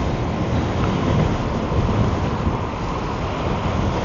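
Wind noise rushing and buffeting over the microphone of a rider on a fast electric scooter, a steady rush that swells and dips a little.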